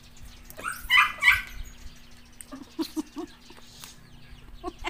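A dog barking twice in quick succession, loudly, about a second in, followed by a few short, quieter calls around three seconds in.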